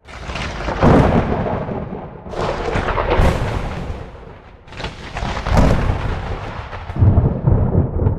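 Close thunder: about four sharp, crackling claps in quick succession, each trailing off into a low rolling rumble.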